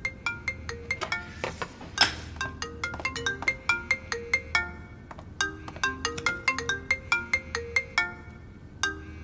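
Smartphone ringtone playing a tune of short, quick notes. The phrase stops for a moment about halfway through, then repeats. There is one brief sharp noise about two seconds in.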